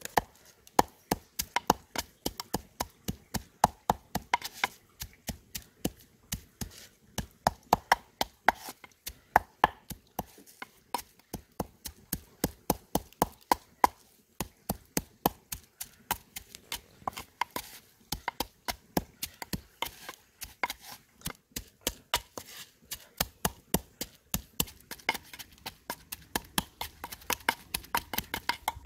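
Wooden pestle pounding garlic in a clay mortar: steady dull knocks, about three to four a second, that stop at the end.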